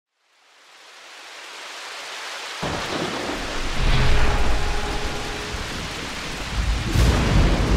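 Thunderstorm sound effect under a logo animation: rain hiss fading in from silence, then low rumbling thunder breaking in suddenly about two and a half seconds in and swelling again near the end. A faint steady humming note sits under it for a second or two in the middle.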